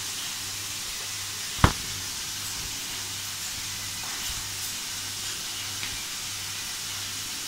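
A small knife trimming the edges of baked walnut-shaped cookie shells over a bowl: a few faint light ticks over a steady hiss and low hum, with one sharp knock about one and a half seconds in.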